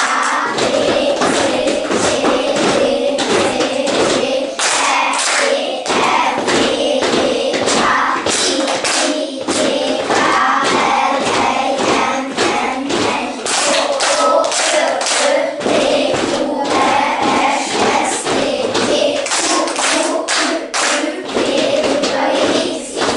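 A class of young children chanting the Hungarian alphabet in unison, letter by letter, clapping their hands on each vowel and stamping their feet on each consonant. The voices run in a quick steady rhythm, with a clap or a thud on nearly every letter.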